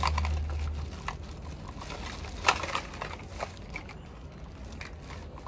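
Thin plastic carrier bag rustling and crinkling as a hand rummages through the things inside it, with scattered clicks and one sharper click about two and a half seconds in.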